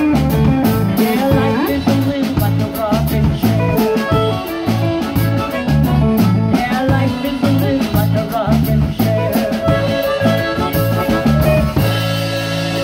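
Live band playing: amplified harmonica wailing over electric guitar, acoustic-electric guitar and drum kit, with a repeating low line underneath. Near the end the band stops together on a held final chord that rings on.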